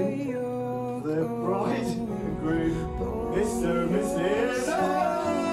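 Background music: a song with a male singer.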